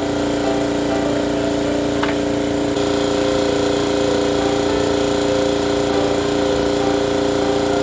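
A power tool's motor running steadily at one speed, with a constant hum under a dense whir.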